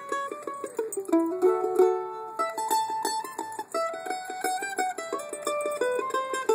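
Mandolin playing a bluegrass tune, with fast picking that repeats single notes in quick runs.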